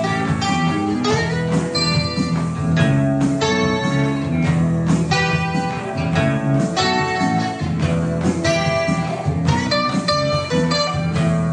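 Background music of plucked guitar, a quick run of notes.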